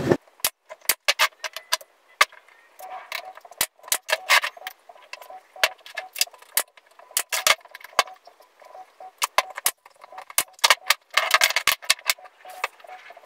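Sharp wooden knocks and clicks in a quick, irregular series as small eucalyptus pallet-wood strips are handled and fastened together into square frames, with a denser clatter near the end.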